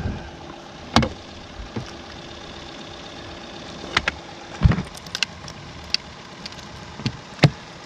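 A handful of sharp knocks and clicks from gear being handled on a fishing boat's deck, the loudest just before the middle and near the end, over a steady low hum of a small motor.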